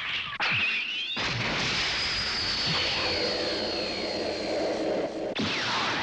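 Cartoon sound effects of robots flying through space. A short rising swish in the first second gives way to a steady rushing jet-thruster noise with a thin high whine and falling whistles, which cuts off shortly before the end.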